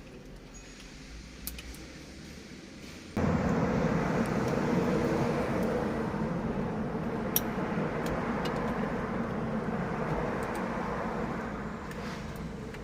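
Low hum for about three seconds, then a car starts up suddenly and runs steadily with a rumbling noise, easing off a little toward the end.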